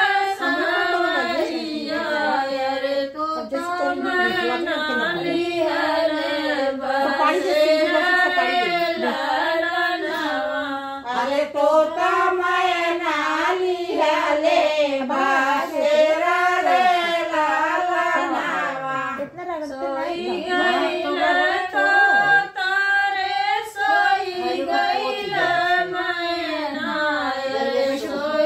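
Women singing a traditional North Indian wedding folk song (shaadi ke geet), with a continuous, flowing melody.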